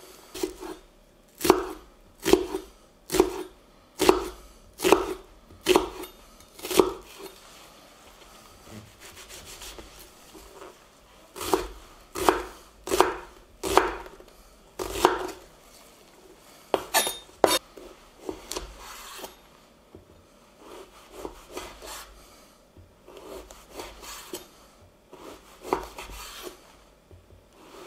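Chef's knife chopping spring onion and red onion on a wooden cutting board, then slicing sausage. Sharp strikes of the blade on the board come in runs of about one a second, with softer, quieter cutting in between.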